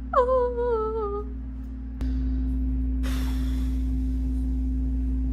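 A short, high vocal sound slides down in pitch. After an abrupt change about two seconds in, a steady, even humming tone runs on, with a brief breathy rush about a second after it starts.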